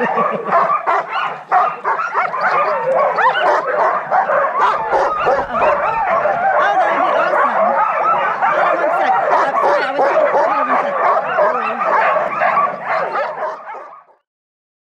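A pack of harnessed sled dogs barking, yipping and whining together in a dense, continuous din, worked up and eager to run before the start. The din cuts off suddenly near the end.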